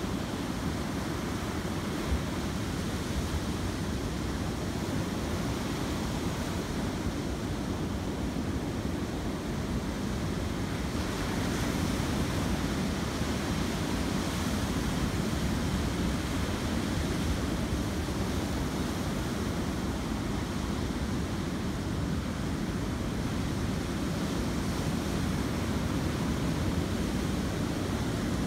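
Ocean surf breaking and washing over a rock jetty and up the sand: a steady rush of white water, a little louder from about eleven seconds in.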